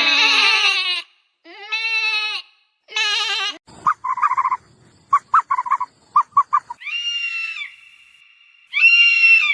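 A series of farm animal calls. Three wavering bleats in the first four seconds are followed by a quick run of about a dozen short, clipped calls. Two higher, drawn-out bleats come near the end.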